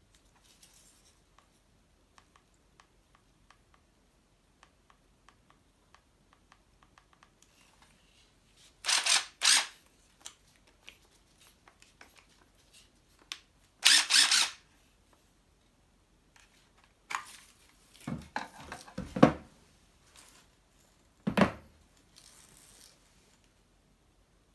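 Several short rustling, scraping handling noises, each lasting about half a second to a second, with faint light ticks before them.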